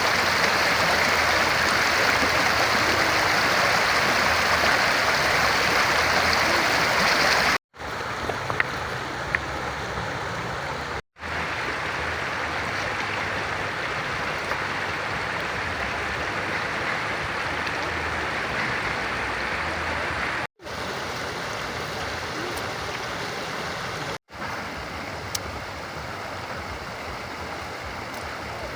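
River water flowing, a steady rushing that is louder over the first several seconds. It cuts out for an instant four times.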